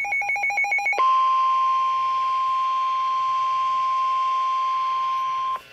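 Emergency alert tones: about a second of rapid beeping, then a single steady, high-pitched alert tone near 1 kHz, the warning alarm tone used by NOAA Weather Radio, held for about four and a half seconds before it cuts off abruptly.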